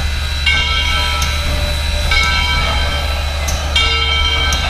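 Steam locomotive 630 being turned on the turntable, with a ringing, bell-like set of tones repeating about every second and a half over a steady low rumble.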